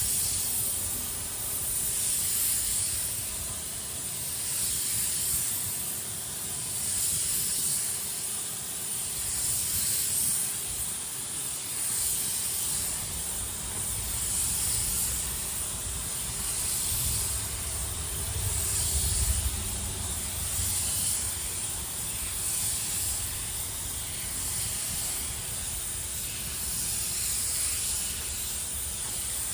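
Compressed-air paint spray gun hissing as it sprays epoxy primer, the hiss swelling and fading about every two seconds as the gun works across the surface. The gun is fed air with no regulator on it.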